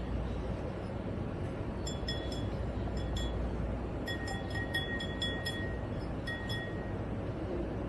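Light, high chime-like tinkling, many short rings clustered in the middle seconds, over a steady low background rumble.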